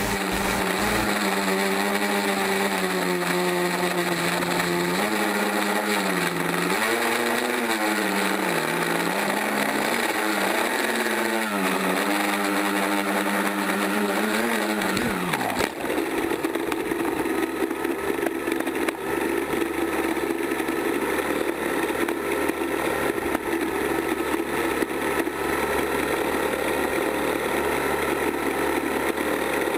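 An FPV quadcopter's electric motors whining, the pitch rising and falling with the throttle. About halfway through the pitch drops away, and a steady hum at one unchanging pitch follows as the craft sits in the grass.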